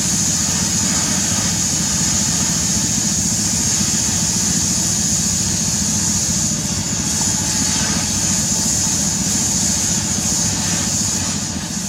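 Diesel engine of a Sany SR150C hydraulic rotary drilling rig running steadily, with a steady high-pitched hiss above the low engine hum.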